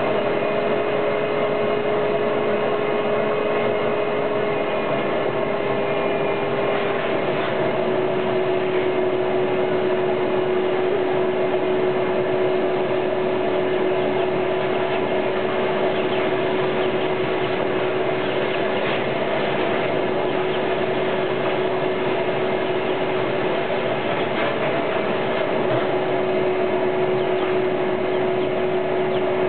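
Vacuum cleaner running steadily: a constant rushing noise with a steady hum that drops slightly in pitch about seven seconds in.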